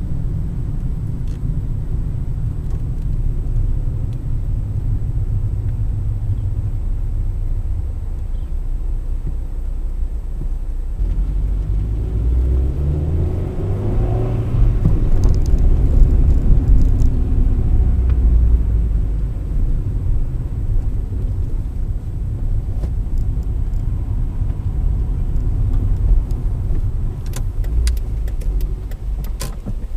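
Car driving, heard from inside the cabin: a steady low road and engine rumble, with the engine note rising and getting louder about halfway through. A quick run of sharp clicks near the end.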